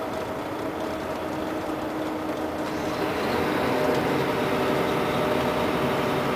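Volvo B12R coach's rear-mounted six-cylinder diesel engine running, with a steady engine note that gets louder about three seconds in.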